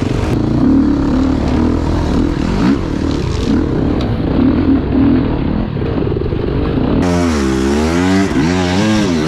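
Dirt bike engines running while being ridden, the revs rising and falling with the throttle. From about seven seconds in, the revs swing up and down in quick throttle blips.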